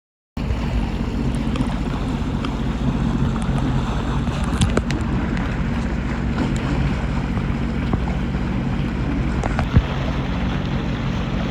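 Jet ski engine running steadily at speed over open ocean, with wind buffeting the microphone and water rushing past the hull. A few sharp knocks come through, the loudest near the end.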